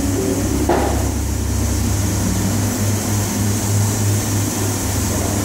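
A steady low hum of workshop background noise, with one short knock a little under a second in.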